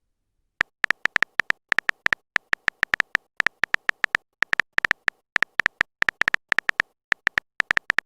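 Phone keyboard typing sound effect: a quick, irregular run of short electronic clicks, about four or five a second, as a chat message is typed out.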